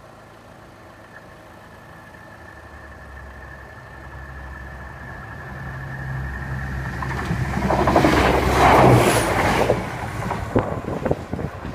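Train approaching and passing over a level crossing. A low engine rumble grows over several seconds and rises to a loud rushing peak about eight to nine seconds in, then breaks into a rapid clatter of wheels over the crossing rails near the end. A thin steady high tone sounds through the first half.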